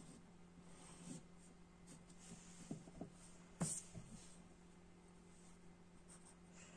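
Faint scratching of a graphite pencil drawing on paper, with one light tap about halfway through.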